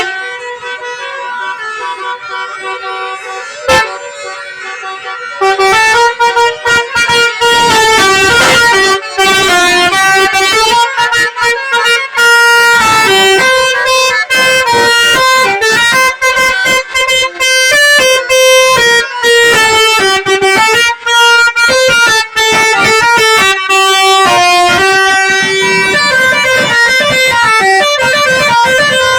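Bus 'telolet basuri' multi-trumpet horn playing a melody in held, stepped notes. It starts fairly quietly and becomes much louder about five seconds in.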